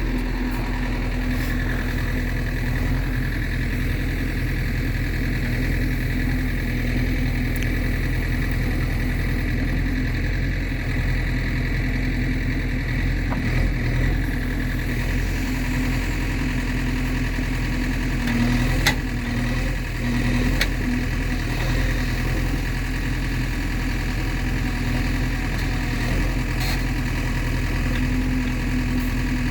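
Heavy diesel engine running steadily at low revs, with two sharp knocks about two-thirds of the way in.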